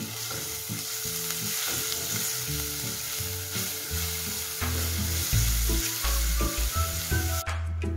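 Minced garlic sizzling steadily in hot olive oil in a saucepan while a silicone spatula stirs it. The sizzle cuts off abruptly near the end.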